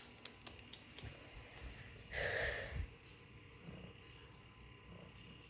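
A short breathy puff of air, like a sniff or sigh, about two seconds in, among faint clicks and handling noises.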